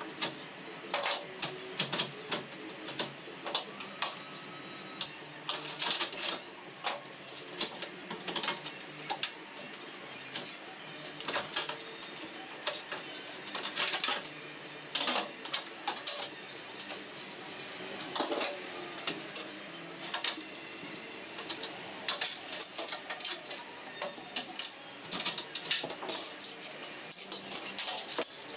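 Irregular clicks, clinks and rattles of hand tools and metal parts being worked loose from a 1977 VW Bay Window Bus front door as it is stripped, with a few quick runs of clicking.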